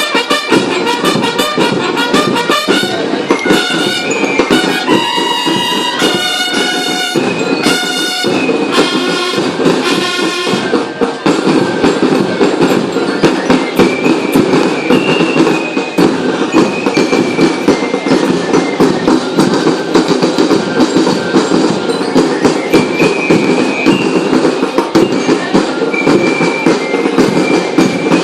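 Loud music with brass and a fast, driving percussion beat; about eleven seconds in it changes to a denser, busier section.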